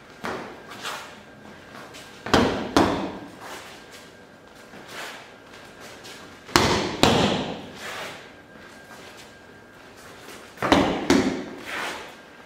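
Double jabs smacking into a hand-held focus mitt: three pairs of sharp slaps, about four seconds apart, with lighter knocks between them.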